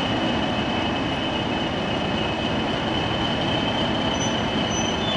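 Diesel locomotive running as it creeps into the platform: a steady engine rumble with a constant high whine over it.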